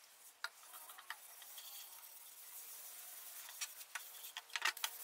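Faint rubbing of a cloth spreading oil over a maple board, with a few soft clicks and light scuffs, the louder ones near the end.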